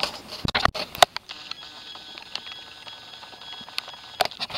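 A few sharp clicks and knocks from hands working among the hoses and metal parts of a truck engine bay, with faint steady high tones in the background.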